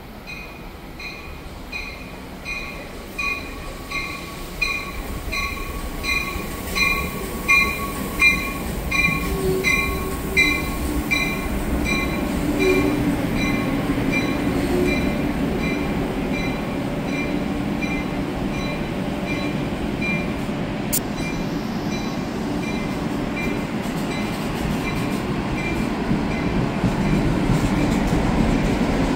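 Commuter train pulling into the station past the platform: a bell rings about twice a second, loudest several seconds in and fading out after about twenty seconds. Under it a low rumble of the passenger coaches rolling in grows steadily louder.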